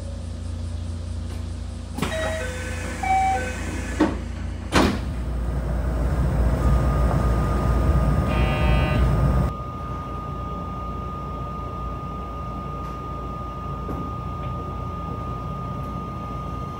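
Sliding passenger doors of a JR West 227 series train: a few chime tones, then two sharp thuds as the doors shut. A louder stretch of noise follows and cuts off abruptly about halfway through. After that the train's steady hum with a thin high tone continues.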